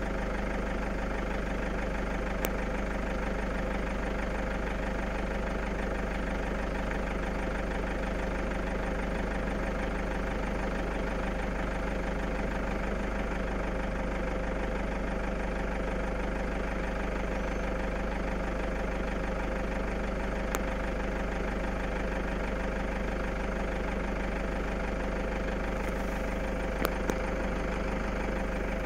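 A vehicle engine idling steadily and evenly, with a few light clicks.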